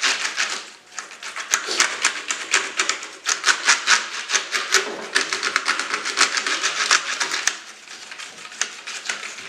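Small bristle brush sweeping back and forth across a computer keyboard's keys: a rapid run of light scratchy rubbing and key rattles, softer in the last two seconds.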